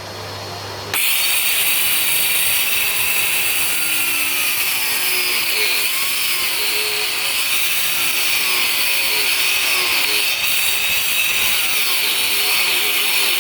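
Stone-cutting saw with a diamond blade cutting into the fireplace stone, starting about a second in and running steadily, with a slight wavering in pitch as the blade works under load.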